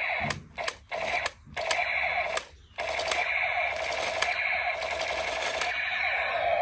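Battery-powered light-up toy submachine gun running its firing effect: a steady, rattling, buzzing machine-gun sound. It breaks off briefly three times in the first three seconds, then runs on and stops near the end.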